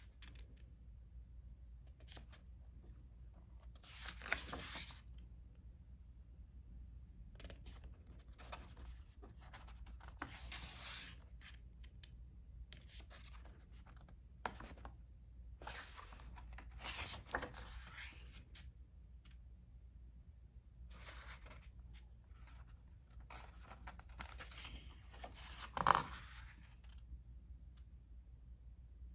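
Pages of a hardcover picture book being turned and pressed flat by hand: intermittent paper rustling and brushing, with a louder swish of a page turn near the end.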